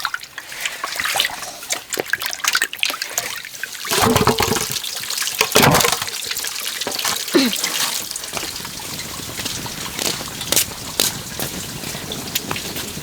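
Water trickling and splashing, with scattered short clicks and knocks; it gets louder about four seconds in.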